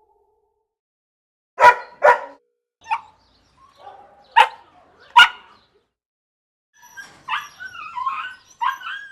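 Dog barking: two loud barks in quick succession, a softer one, then two more loud barks spaced about a second apart, followed near the end by a run of higher, wavering cries that rise and fall in pitch.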